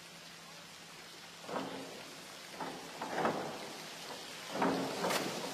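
A springboard dive: several knocks from the board, then the splash of the diver entering the water, over a steady hiss.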